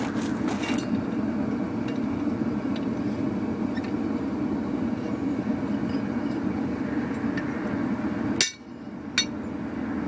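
Gas forge burner running with a steady roar. Near the end it drops off suddenly, and two sharp metallic clinks follow under a second apart.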